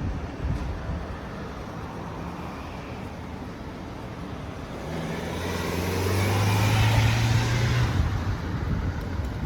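Road traffic, with a motor vehicle passing close: its low engine hum and tyre hiss build up about halfway through, peak, then fade.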